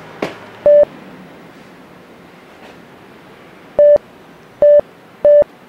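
Electronic beeps, each a single steady tone that switches on and off sharply: one about a second in, then three more in quick succession near the end. A footstep on the floor is heard just before the first beep.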